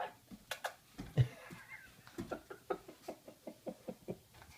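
A kitten and puppy scuffling on a bed: soft knocks and a loud thump about a second in, followed by a person's quiet chuckling in short, rapid breaths.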